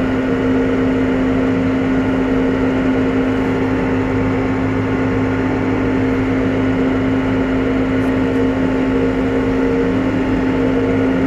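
New Holland T5.120 tractor's diesel engine running steadily under load while pulling a three-furrow plough, held at constant revs by engine cruise control.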